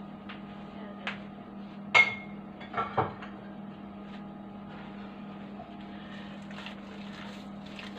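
A few light knocks and one short, ringing clink of kitchen ware being handled, over a steady low hum; soft sounds of hands starting to work raw minced meat in a bowl near the end.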